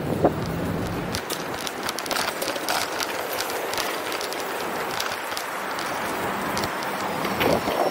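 Street noise from a moving bicycle: a steady hiss of wind and tyres with many small clicks and rattles. There are brief louder squeaks just after the start and near the end.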